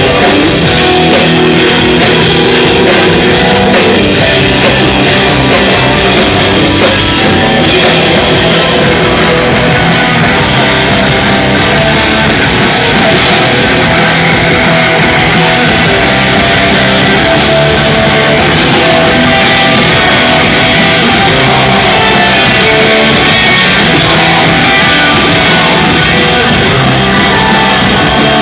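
Hardcore punk band playing live: distorted electric guitar, bass guitar and drum kit, loud and steady throughout.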